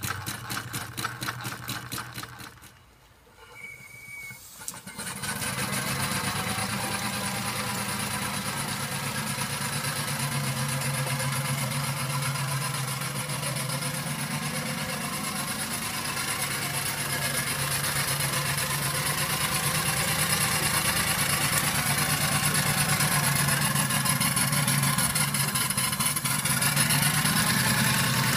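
Miniature steam crawler tractor's engine running: a rapid, even beat at first, then, after a short quiet gap about three seconds in, a steady hiss of steam over a low drone as it drives along.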